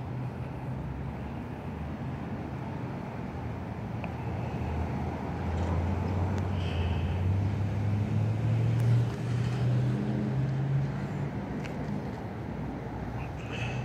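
A motor vehicle's engine hum swelling from about four seconds in, loudest around eight to ten seconds, then fading, over steady street traffic noise.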